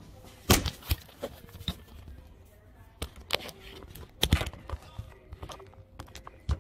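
Handling noise: a series of sharp knocks and rustles as the recording phone is picked up and moved around and macrame cord is handled, loudest about half a second and four and a half seconds in.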